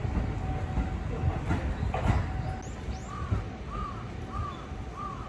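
E233-series electric train running slowly away along the tracks with a steady low rumble, two wheel knocks about a second and a half and two seconds in. A bird calls four times in the second half.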